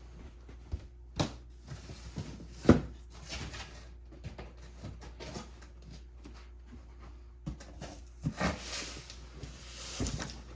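Vacuum cleaner parts and accessories being handled: scattered clicks and knocks, one sharp knock about a third of the way in, and rustling near the end.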